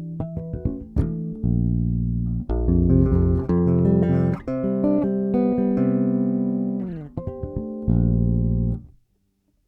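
Electric bass guitar played dry through an amplifier with no compressor: a phrase of sustained notes, several ringing together in the middle, that stops abruptly about nine seconds in.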